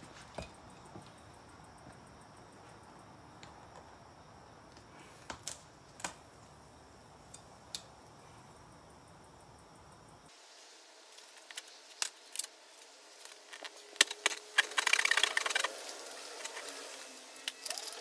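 Scattered clicks and clinks of hand tools from a tyre plug kit being handled while a flat car tyre is plugged, with a stretch of scratchy rasping about fifteen seconds in.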